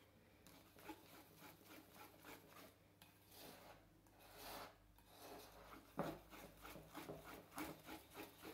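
Wire whisk stirring thick chocolate cake batter in a ceramic bowl: faint, repeated swishing scrapes of the wires through the batter and against the bowl, coming faster near the end.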